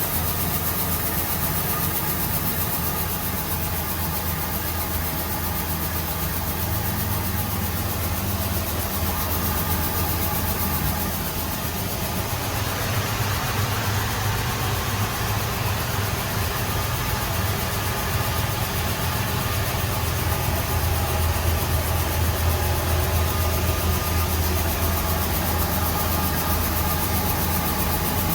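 Rice huller machine running steadily: a low motor hum with a noisy whir above it, which grows fuller about twelve seconds in.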